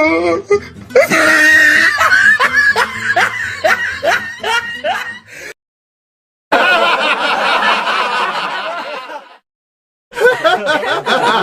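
A series of laughter sound effects, one after another, each cut off by a second of silence: a rhythmic ha-ha laugh that slows as it fades, then a denser stretch of laughter, then another laugh starting near the end.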